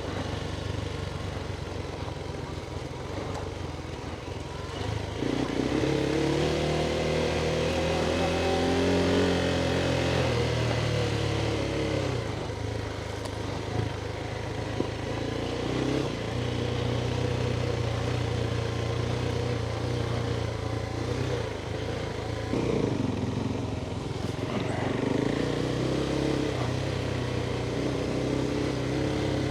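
Adventure motorcycle engine running while riding off-road, its pitch rising and falling with the throttle, with a longer climb and drop in revs about five to twelve seconds in.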